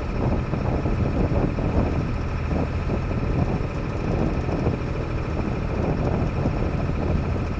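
Sailboat's inboard engine running steadily under way, a constant low hum with a steady higher whine, and some wind noise on the microphone.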